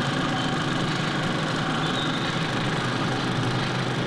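Film projector running, a steady mechanical whirr and clatter.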